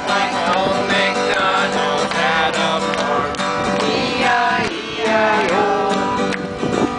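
A voice singing to a strummed acoustic guitar: a sing-along children's song.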